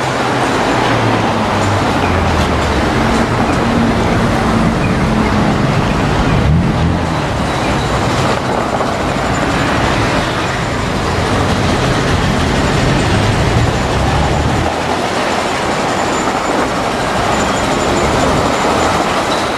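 Street traffic: cars passing and the diesel engine of a Hino Rainbow city bus running at low speed. The low engine drone drops away about 15 seconds in.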